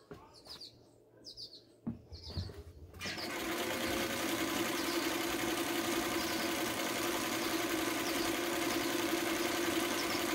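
Singer 319W sewing machine starting up about three seconds in and running at a steady speed, sewing a straight stitch through fabric with a steady hum. Before it starts, a single knock is heard about two seconds in.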